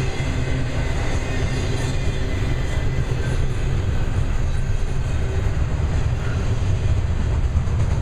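Double-stack intermodal container well cars rolling past at track speed: a steady rumble of steel wheels on rail.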